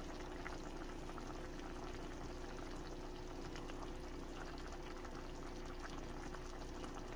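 A steady, even watery hiss of liquid.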